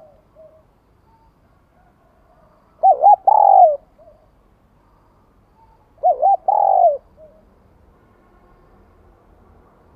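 Spotted dove cooing: two loud calls about three seconds apart, each two short coos followed by a longer falling coo, with a few soft notes near the start.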